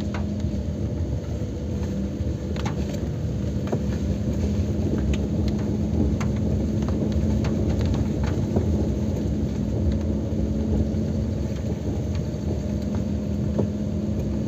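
Car driving on a wet road, heard from inside the cabin: steady engine and tyre rumble with a constant low hum, and scattered light ticks.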